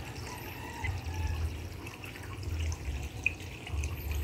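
Aeration bubbling and trickling in the water of a goldfish egg tub, fed by an air line, with a low rumble coming and going underneath.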